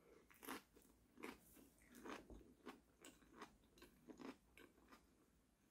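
Faint, irregular crunching, about two or three crunches a second: someone chewing a mouthful of steamed cabbage leaf wrap.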